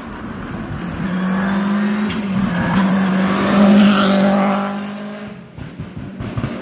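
Škoda Fabia rally car's turbocharged four-cylinder engine held at a steady high note at full throttle as it passes close by, loudest about four seconds in and then fading away, with a few sharp pops near the end.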